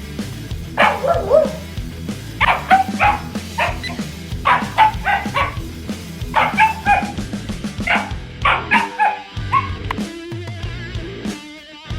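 Shiba Inu barking and yipping in quick clusters of short calls, one burst about every two seconds.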